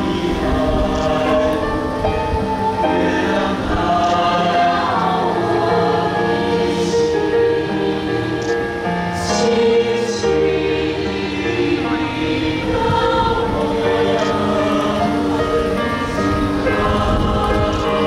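High school choir singing in several parts, holding long sustained chords that move from note to note.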